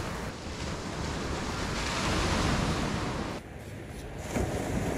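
Ocean surf breaking and washing up a sandy beach, swelling to its loudest about two seconds in; the sound drops away briefly about three and a half seconds in, then picks up again.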